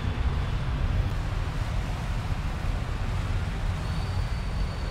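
Wind buffeting the phone's microphone: an uneven low rumble over a steady hiss, with a faint thin high tone near the end.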